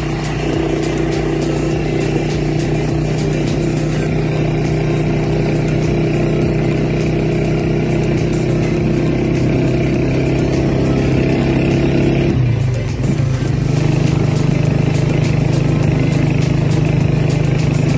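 Engine of a vehicle running steadily at road speed, with a short dip in pitch about twelve seconds in, as on a gear change, before it settles again.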